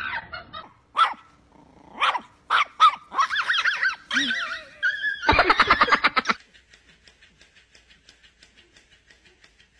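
A dog barking and yipping in a run of short, high calls that bend up and down in pitch, stopping about six seconds in. Faint quick ticking, about four a second, follows.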